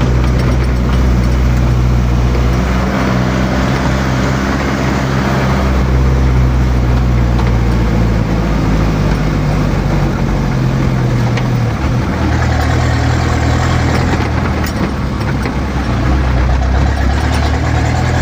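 Motor vehicle engine running steadily and loud, its low pitch shifting a few times, with road or wind noise.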